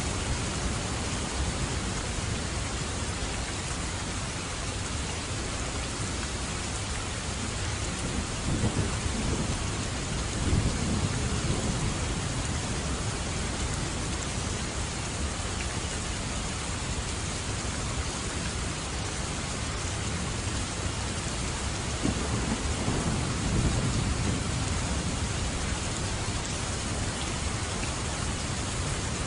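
Steady heavy rain with distant rolling thunder, which swells twice, about a third of the way in and again about three-quarters of the way through.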